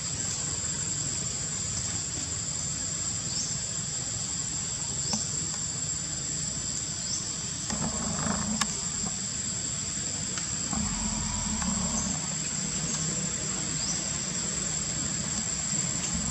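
Steady high-pitched shrill of an insect chorus (cicadas or crickets), with short rising chirps repeating every second or two.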